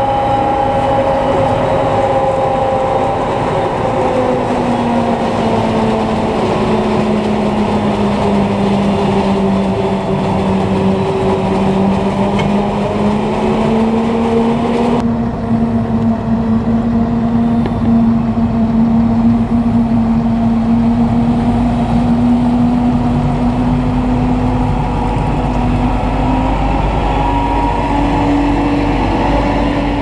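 Claas Axion 930 tractor's diesel engine running steadily, heard from inside the cab, its pitch drifting slowly up and down with engine speed. About halfway through the sound changes abruptly to tractor and trailer running heard from low outside, with a heavier low rumble.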